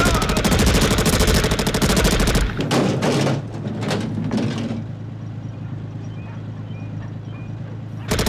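Automatic fire from compact submachine guns in a film soundtrack. A long rapid burst lasts about two and a half seconds, shorter bursts follow around three and four seconds in, and a fresh burst starts near the end.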